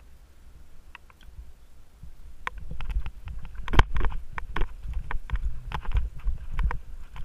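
Mountain bike riding over rough, sandy, root-strewn singletrack: a low rumble with a quick run of knocks and rattles from the bike, starting about two seconds in, with the loudest knock near four seconds.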